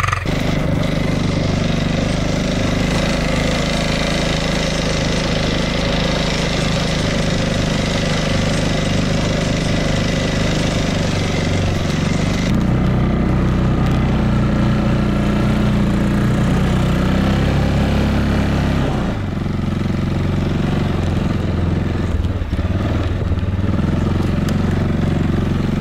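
Quad bike (ATV) engine running steadily as it is ridden over snow, heard from on the machine. The sound changes abruptly about twelve seconds in and again about nineteen seconds in.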